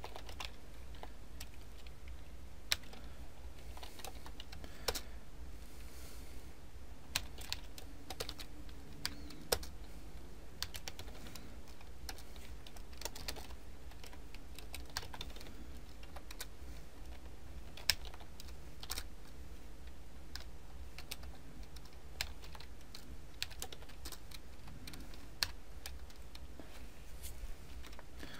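Computer keyboard typing: irregular, scattered keystroke clicks, a few of them sharper than the rest, over a steady low hum.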